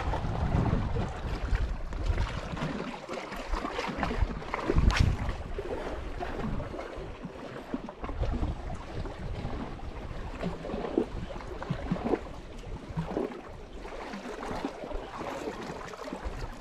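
Wind buffeting the microphone, with a strong gust at the start, over sea water washing and lapping against shoreline rocks.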